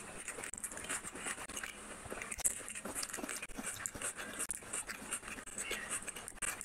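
Chewing and wet mouth smacks of a person eating rice and fish curry by hand, a dense run of small irregular clicks, with the soft squelch of fingers mixing rice and gravy on the plate about four seconds in.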